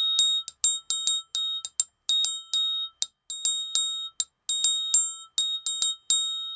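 Latin Percussion steel conga tuning wrench struck with a thin metal beater in a quick rhythm of about four strikes a second. It gives a high, bell-like ring. Some strikes ring on while others are damped short by the hand holding the wrench.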